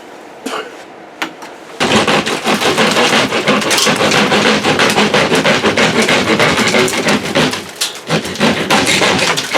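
Rapid, continuous clattering and knocking from hand work on the building's framing or ceiling, starting about two seconds in and easing off near the end.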